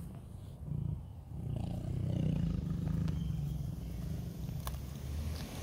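Tiger growling low and rumbling over its food while eating a raw chicken, with a couple of sharp clicks near the end.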